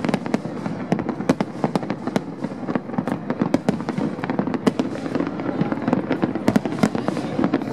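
Aerial fireworks bursting in quick, irregular succession: several sharp bangs and crackles a second over a steady low background rumble.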